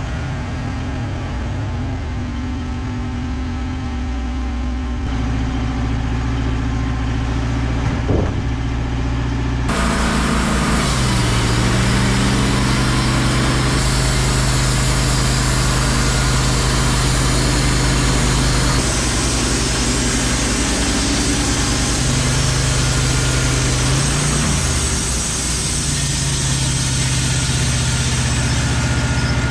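Wood-Mizer LT15 Wide bandsaw mill running under load, its engine holding a steady note while the band blade saws through an eastern white pine log with a constant hiss. About ten seconds in the engine note shifts lower and the hiss grows brighter, and it dips briefly again near the end.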